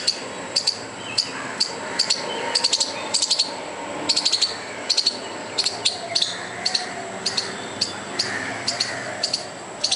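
Squirrel alarm calls: sharp, high chirps in quick runs of one to four, repeating about twice a second without a break. The squirrel is scolding a dog as a threat display.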